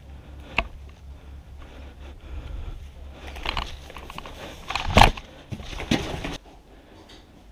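Footsteps and kit rustling as an airsoft player walks over grass and concrete and into a stone stairwell, with a steady wind rumble on the helmet microphone that falls away near the end. A few sharp knocks, the loudest about five seconds in.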